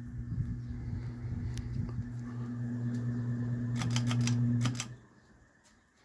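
1994 Encon 36-inch ceiling fan motor humming steadily. About four seconds in comes a quick run of sharp clicks, then the hum cuts off suddenly: the motor has been switched off and the blades are left coasting.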